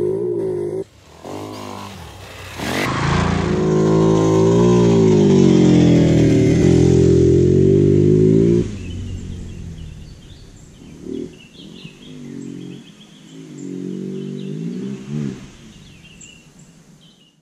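Hero Xpulse 200 single-cylinder motorcycle engine revving hard, pitch rising and falling with the throttle during a powerslide on dirt. It drops away suddenly about nine seconds in, then comes back twice as fainter throttle bursts, with birds chirping over it near the end.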